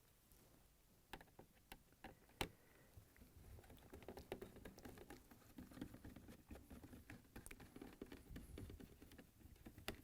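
Faint clicks and light scratching of a Phillips screwdriver working small screws out of a refrigerator dispenser's control board assembly, with one sharper click about two and a half seconds in.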